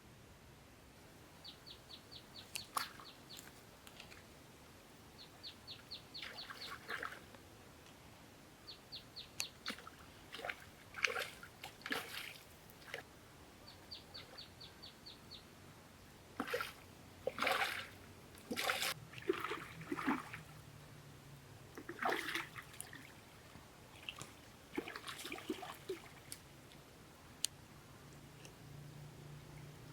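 Water splashing and sloshing in irregular bursts, with several short runs of rapid, even clicking.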